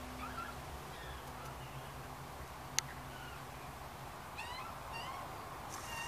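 Backyard birds calling with short, squeaky, meow-like chirps scattered throughout, over a low steady hum, with one sharp click a little before halfway.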